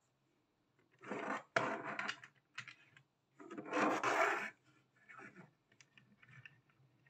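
Die-cast toy buses being slid and handled on a hard tabletop, making rough scraping rubs: two longer scrapes about a second in and near the middle, then a few shorter, fainter ones.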